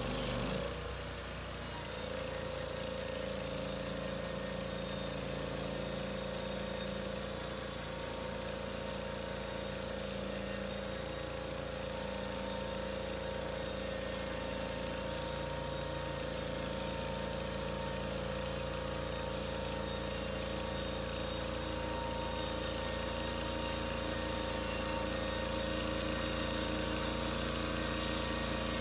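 Norwood LumberPro HD36 portable bandsaw mill comes on suddenly, then its engine runs steadily under load as the band blade cuts along a pine cant. The sound grows slightly louder as the sawhead travels closer.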